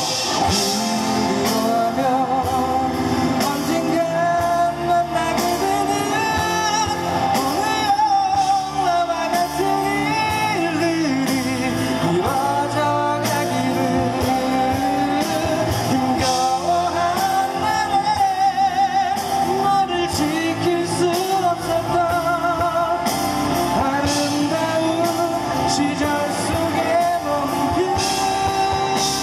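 A live rock band playing, with a man singing lead into a microphone over electric bass and the rest of the band.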